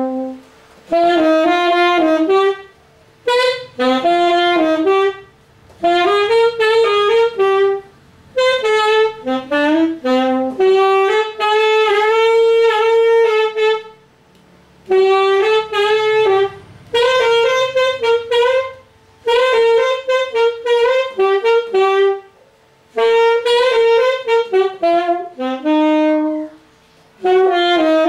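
Yamaha YAS-280 alto saxophone playing a melody in phrases of a few seconds, with short gaps between them.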